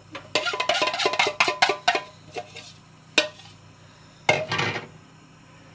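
A metal spoon knocking and scraping against a saucepan while butter is spooned in: a quick run of clicks and taps for about two seconds, a single sharp knock about three seconds in, and a short louder clatter near the end.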